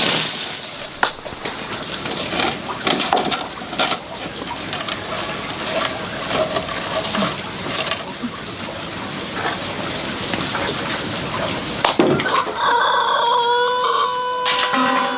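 Scattered knocks and rustling from handling things, over a thin steady high tone; near the end a rooster crows, a long call that falls in pitch as it trails off.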